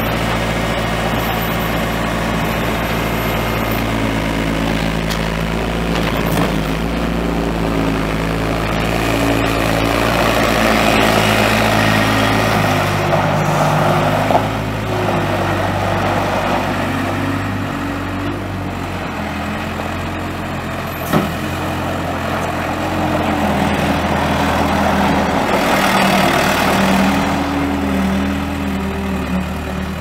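Case 445 skid steer's four-cylinder diesel engine running, its pitch and load stepping up and down several times. There is a short sharp knock about two-thirds of the way through.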